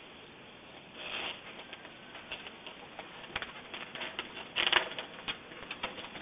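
A German Shepherd clawing at and pushing through a window screen: irregular scratching, rattling and clicking, with a louder scraping burst about four and a half seconds in.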